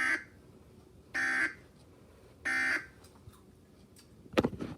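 Emergency Alert System end-of-message signal from a TV speaker: three short bursts of screechy digital data tone, evenly spaced about a second and a quarter apart, closing the broadcast tornado warning. A brief loud clatter follows near the end.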